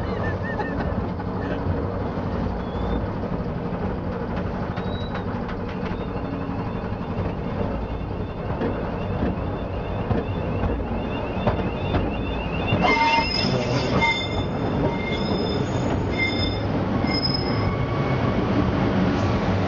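Underground colliery train running on rails through a mine roadway: a steady rumble of the wheels, with high-pitched wheel squeal coming and going from about two-thirds of the way through.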